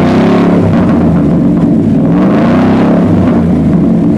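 2018 Ford F-150's 5.0-litre V8 being revved in place through an aftermarket black dual exhaust. The engine falls back from one rev and then rises and settles again about two seconds in.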